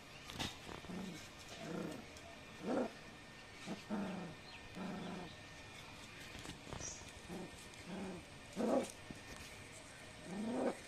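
Young Indian desi puppies whimpering and crying in a string of short, pitched cries, some rising and some falling in pitch, with small pauses between them.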